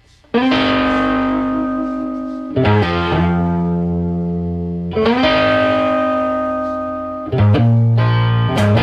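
Background music: held electric guitar chords that change about every two and a half seconds, with quicker strikes near the end.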